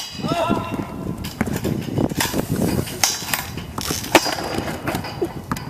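Skateboard trucks and wheels knocking and scraping on the metal rail of a rack, with a string of sharp clacks and a loud clack about four seconds in as the board comes down on the pavement.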